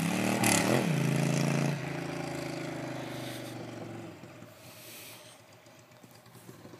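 Ducati Monster 600's air-cooled L-twin running with no exhaust or mufflers, loud and open, its pitch briefly rising and falling under a second in. It then pulls away steadily and fades into the distance over the last few seconds.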